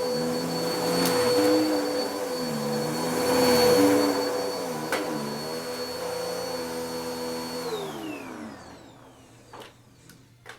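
Bissell vacuum cleaner running over a shag rug, its motor pitch dipping and recovering several times under changing load. About three-quarters of the way through it is switched off and winds down, followed by a few faint clicks.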